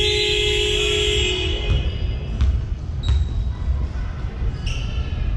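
A basketball hall's horn sounds one long steady electronic tone and cuts off about a second and a half in. A few scattered basketball bounces follow, over the low rumble of the hall.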